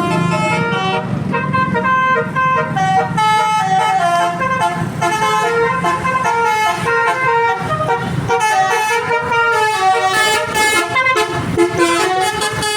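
Bus's Basuri "telolet" musical air horn playing a quick tune of changing notes, one note after another without a break.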